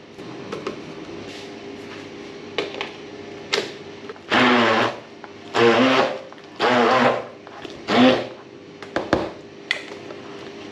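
Handheld immersion blender run in four short bursts of about a second each, blending soft overripe plantain. The pulses are kept short so the mash stays lumpy rather than smooth like batter.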